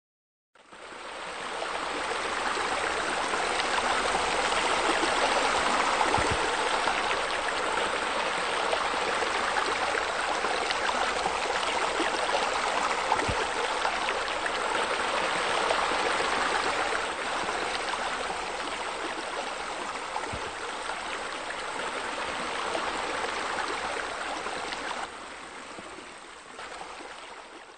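Steady rushing, splashing water of a pool's raised spa spilling over into the pool. It fades in just after the start and drops in level near the end.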